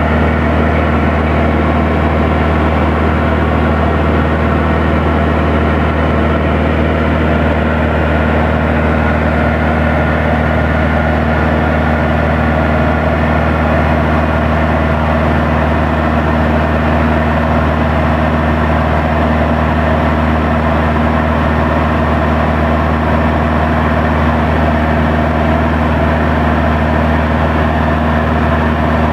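Van's RV-7's piston engine and propeller droning steadily in cruise flight, heard inside the cockpit as an even, unchanging hum with a constant low throb.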